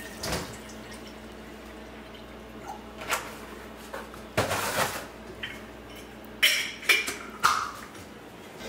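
Water poured from a plastic gallon jug into a stainless steel gooseneck kettle, with the jug being handled. Near the end come three sharp clanks as the kettle is set on the gas stove's grate.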